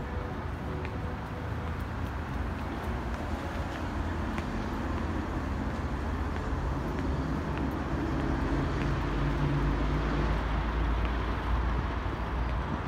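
Road traffic noise with a large vehicle's engine running; its low drone swells and is loudest in the second half.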